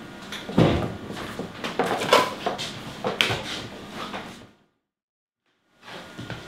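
Knocks, scrapes and rustling as a cardboard product box and a plastic LED light fixture are handled on a tabletop. About three-quarters of the way through, the sound cuts to dead silence for about a second, then faint room noise returns.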